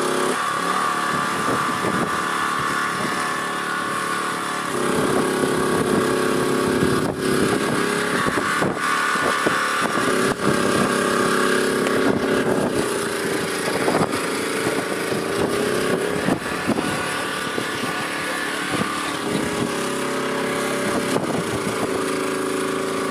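Small petrol engine on an electrofishing boat running steadily, its pitch stepping up and down a few times.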